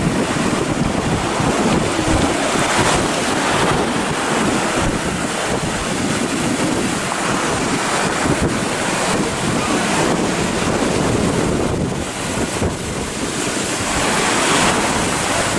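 Ocean surf breaking and washing in a steady roar, with wind buffeting the microphone.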